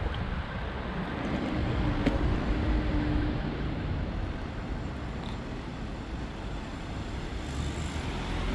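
Outdoor urban ambience: a steady hiss of road traffic with a low rumble underneath. A faint hum comes in about a second and a half in and fades a couple of seconds later.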